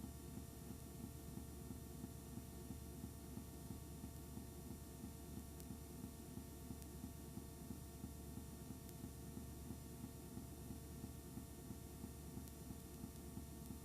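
Steady low electrical hum with faint hiss, unchanging throughout; no other sound.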